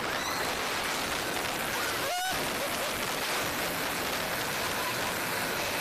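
Steady rush of wind over a head-worn camera's microphone while riding the Mr. Freeze launched shuttle roller coaster, with a brief dip about two seconds in.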